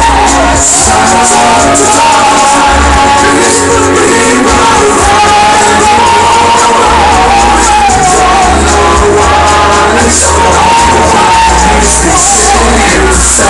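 A rapper's live vocals into a microphone over a loud backing track through a club PA, with a heavy bass beat that drops in and out.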